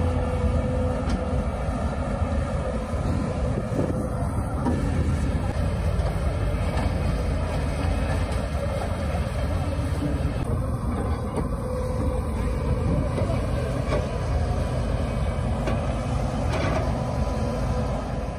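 Hydraulic excavator's diesel engine running steadily, a continuous low rumble.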